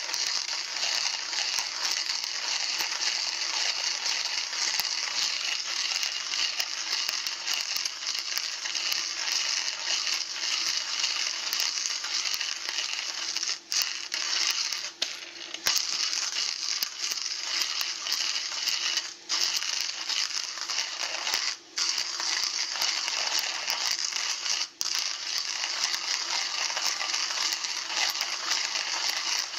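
Hand-cranked coffee grinder grinding coffee beans, a steady grind that stops briefly about five times in the second half.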